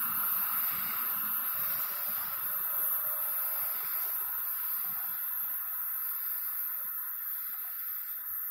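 Distant train running along the line: a steady hiss of wheel and rail noise that slowly fades.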